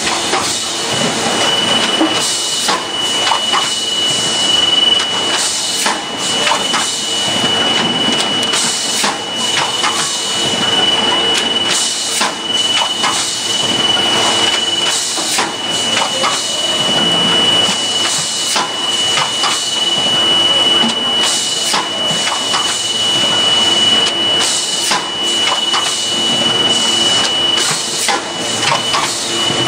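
SP-1220A automatic juice cup filling and sealing machine running, a continuous mechanical clatter of irregular clicks and knocks with a steady high-pitched tone over it.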